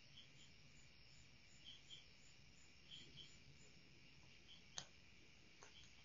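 Faint crickets chirping at night: a steady high trill with short paired chirps repeating every second or so. There is one sharp click near the end.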